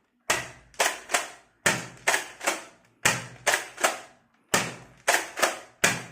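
NERF Elite 2.0 toy blaster firing in quick bursts of three sharp shots, a burst about every second and a half.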